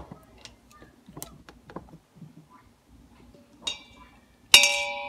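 Light clicks of a measuring spoon, then the spoon tapped against a stainless steel Instant Pot inner pot: a light tap a little past three and a half seconds and a loud strike about four and a half seconds in that rings with a metallic tone and fades over more than a second.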